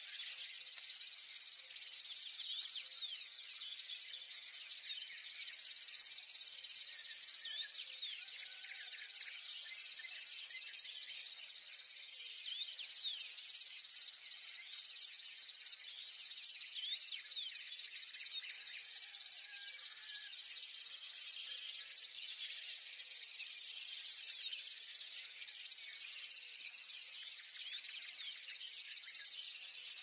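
A Locustella (grasshopper-type) warbler singing its reeling song: one unbroken, high, finely pulsed trill that runs on without a pause. Faint short chirps sound underneath it.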